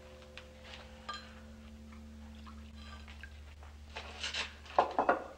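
A held music chord fades away while a cup clinks once about a second in. Near the end comes a short burst of splashing and gurgling liquid, fitting wine being poured.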